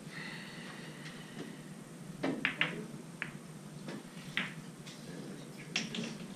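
Pool balls clacking against each other on billiard tables: a couple of sharp clacks about two seconds in, another near four and a half seconds, and two more near the end, over a low room murmur.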